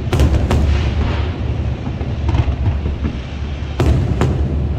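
Aerial fireworks shells bursting in a display: several sharp bangs, two close together just after the start and two more near the end, over a continuous low rumble of booming explosions.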